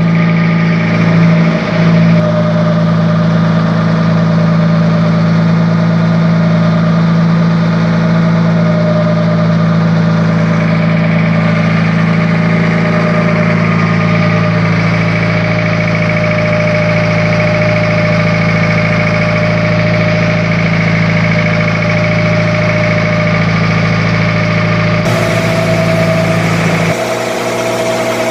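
Fishing boat's engine running steadily while underway, a loud low drone with a constant pitch. Its note changes shortly before the end.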